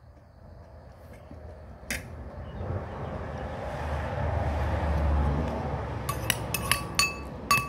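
A low rumble that swells over a few seconds and eases off, then a quick run of sharp clinks of metal cutlery against a ceramic plate near the end.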